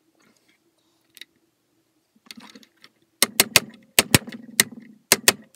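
Sharp metal-on-metal taps on an AK-type rifle's gas piston clamped in a vise while the new adjustable piston is being fitted. The taps begin about three seconds in, come irregularly, and quicken into a rapid run near the end.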